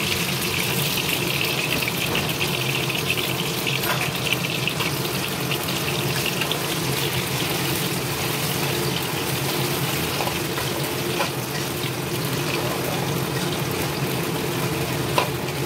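Sliced sweet potatoes deep-frying in hot oil in a wok, a steady sizzle and bubbling, with a few light clicks of a metal spatula turning them.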